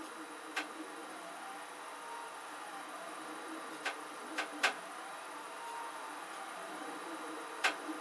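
3D printer's stepper motors whining as the print head moves, the pitch sweeping up and down in repeating arcs every second or two, with a few sharp clicks: one near the start, three close together in the middle, one near the end.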